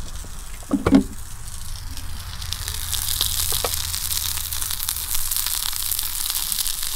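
Sausages sizzling and spitting in a cast iron pan over a wood fire, the sizzle swelling up about two and a half seconds in. There is a short knock about a second in.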